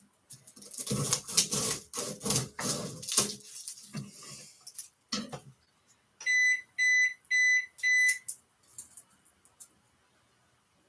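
Kitchen handling noises, a run of knocks and rubbing, followed by four evenly spaced half-second electronic beeps at one steady high pitch, like a kitchen appliance's timer signal.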